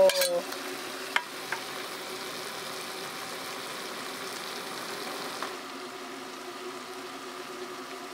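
Herring and sliced green peppers sizzling as they fry in a pan, with two light clicks about a second in; the sizzle fades to a quieter steady background about five and a half seconds in.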